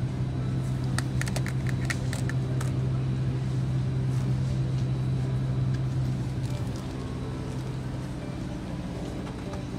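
A steady low machine hum with a run of light clicks about a second in; the hum fades out a little after six seconds, leaving a softer background noise.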